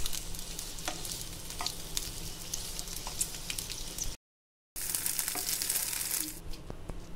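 Diced capsicum and onion sizzling and crackling as they sauté in hot oil in a nonstick frying pan, with a wooden spatula stirring and tapping against the pan now and then. A little past the middle the sound cuts out completely for about half a second, then the sizzle comes back brighter.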